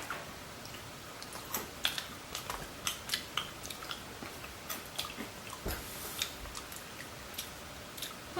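Someone chewing crunchy chocolate-covered corn puffs, with soft irregular crunches and mouth clicks. A soft low bump a little past halfway.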